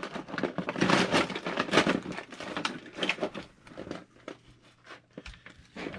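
Rummaging through a bag of small spare parts: the bag rustles and little parts click against each other. It is busiest in the first half and thins to scattered clicks near the end.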